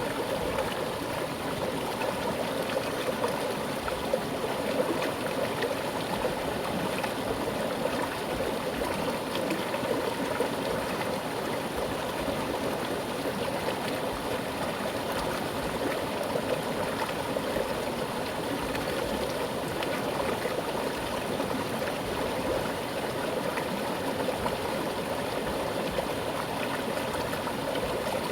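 Mountain stream flowing over rocks with a strong current: a steady rushing and gurgling of water.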